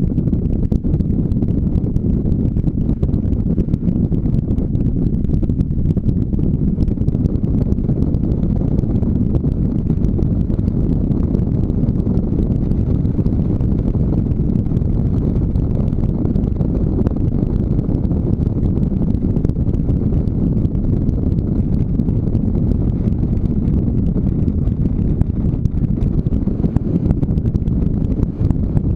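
Motorcycle riding along a gravel road: a steady low rumble of wind buffeting on a helmet-mounted microphone, mixed with engine and tyre noise.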